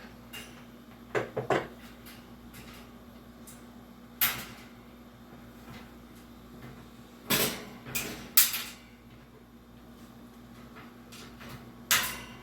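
Metal parts of a vintage Hunter box fan knocked and clattered while being handled during disassembly: a quick run of three knocks about a second in, single knocks around four seconds and near the end, and a louder cluster of clanks in the middle.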